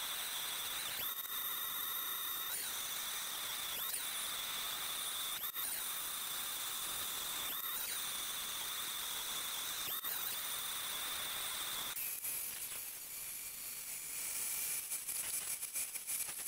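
Vertical band saw cutting through a 3/8-inch mild steel bar: a steady high whine with hiss, with brief breaks every second or two. About twelve seconds in it gives way to a narrow belt sander grinding the steel, a rougher hiss that turns crackly.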